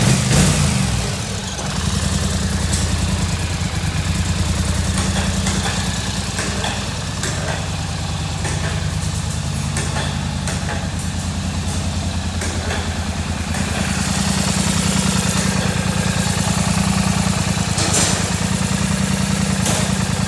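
2009 Polaris Sportsman 850 EFI XP ATV's parallel-twin engine idling steadily after wavering briefly in the first second, with scattered knocks and rattles nearby.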